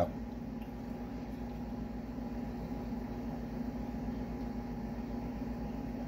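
A steady low mechanical hum with a faint higher tone, even throughout, with no sudden sounds.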